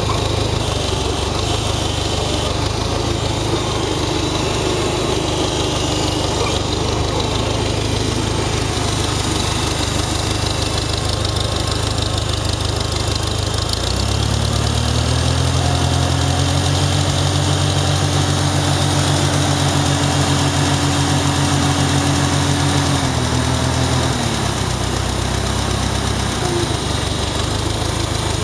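A 1949 Farmall Super A tractor's four-cylinder gasoline engine running steadily at idle. About halfway through it speeds up to a higher, steady speed, holds there for several seconds, then settles back to idle.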